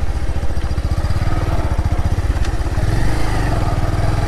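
Motorcycle engine running with a fast, even putter as it rides along a dirt track; the engine note changes about three seconds in.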